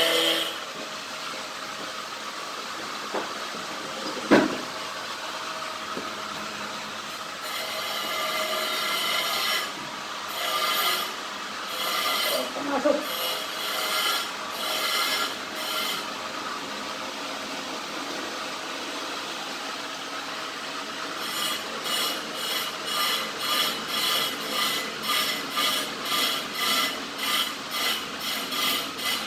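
A hand tool scraping back and forth, in irregular strokes at first, then settling into a steady rhythm of nearly two strokes a second for the last several seconds. A single sharp knock comes about four seconds in.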